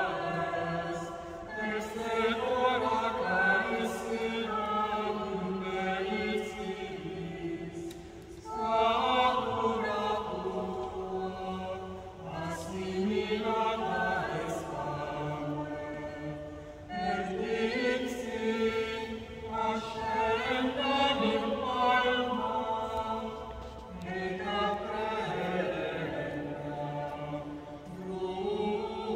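Small mixed choir of women's and men's voices singing a Marian antiphon a cappella, holding chords in long phrases with short breaks between them.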